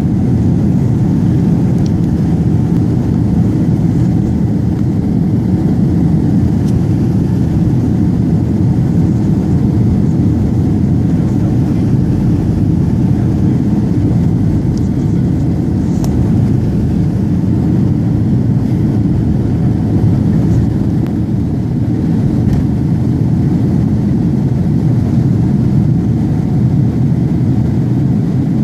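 Airliner taking off: a loud, steady low rumble of engines and airflow that holds even throughout.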